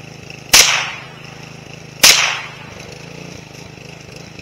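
Two .22 rifle shots from a Ruger, about a second and a half apart, each a sharp crack with a short echo. Under them a push mower's small engine runs steadily.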